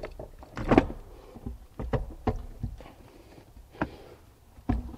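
Irregular knocks and thuds of a car battery being set down into its under-seat floor tray and worked into place under the hold-down lip, with a louder thud about a second in and more knocks near the end.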